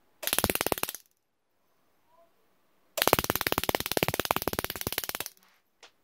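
High-voltage discharge from dual ignition coils firing through a microwave-oven bulb, a rapid run of evenly spaced snapping sparks. A short burst under a second long comes first, then a longer burst of about two seconds starting halfway through, and a brief snap near the end.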